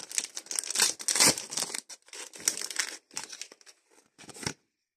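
Paper wrapper of a Match Attax trading-card pack crinkling and tearing as it is opened by hand, in dense irregular crackles that thin out to a few scattered rustles near the end.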